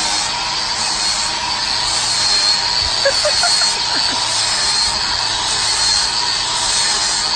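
Angle grinder with an abrasive disc running steadily as it grinds the charred top off a burnt pizza, a constant high motor whine over a grinding hiss.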